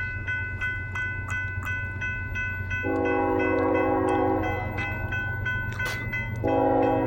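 Railroad crossing bell ringing about three strikes a second over the low, steady rumble of a diesel locomotive. The locomotive's air horn sounds a chord of several notes about three seconds in, and a second blast starts near the end.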